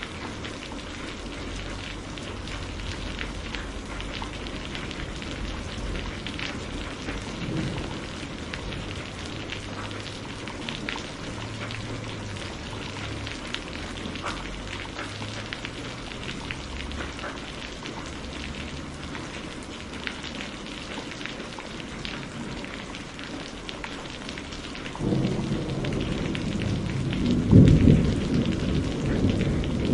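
Steady rain falling, an even hiss with the patter of individual drops. About 25 seconds in, a roll of thunder starts rumbling low and swells to its loudest near the end.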